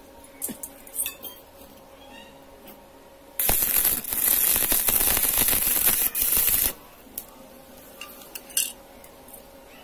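Stick (arc) welding on steel: the electrode's arc crackles and sizzles for about three seconds, starting a few seconds in and cutting off sharply, with a few faint clicks before it.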